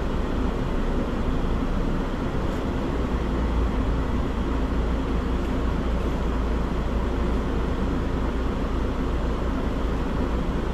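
Flatbed semi-truck's diesel engine running at low speed, heard from inside the cab as a steady low rumble. The truck creeps forward slowly, with no change in engine note.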